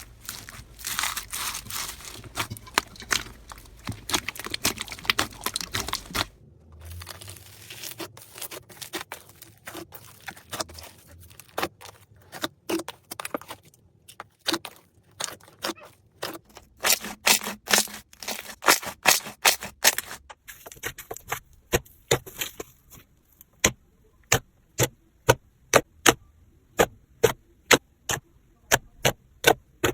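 Slime being handled close to the microphone: crackling, squishing and popping clicks that change every few seconds from one clip to the next, ending in a run of sharp clicks about twice a second.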